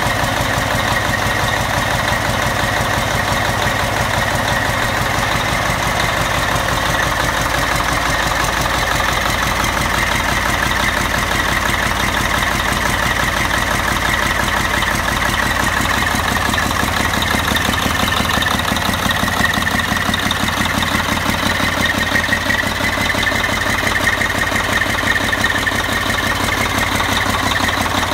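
Caterpillar 3176 inline-six diesel engine running steadily at idle on a test stand.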